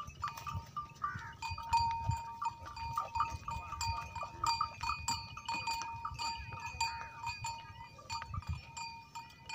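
Metal neck bells on walking water buffaloes clinking irregularly, many quick strikes, each ringing on, so that one bell tone carries through.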